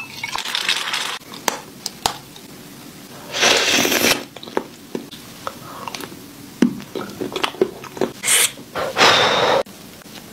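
Close handling and eating sounds: liquid pouring into a ceramic mug at first, then scattered taps, clicks and mouth noises as cream is eaten from the mug with the fingers, with two louder noisy bursts of about a second each, the second cutting off suddenly.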